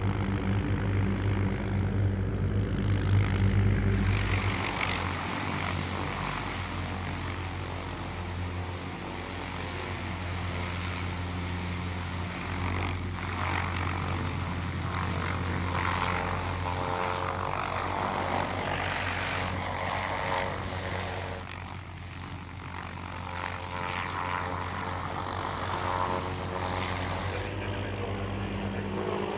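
MH-6M Little Bird helicopters' rotors and turboshaft engines running steadily. The sound changes abruptly about four, twenty-one and twenty-seven seconds in, as different helicopters are heard.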